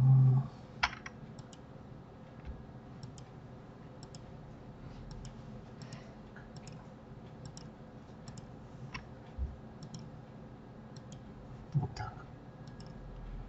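Scattered clicks of a computer mouse and keyboard, a few at a time, over faint room hiss. A brief louder low sound comes at the very start, and a short one about twelve seconds in.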